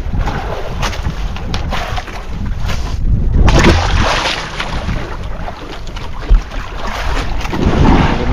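Wind buffeting the microphone over water sloshing and splashing against the hull and bamboo outrigger of a small fishing boat. It gets louder from about three and a half seconds in, with a single sharp knock a little past six seconds.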